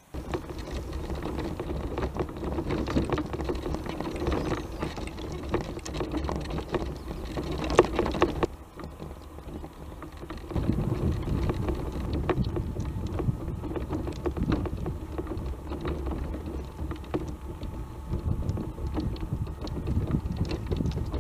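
Off-road Tramper mobility scooter's electric drive running as it climbs a rough gravel track, with the tyres crackling over stones. It eases off for a couple of seconds about halfway, then runs on louder.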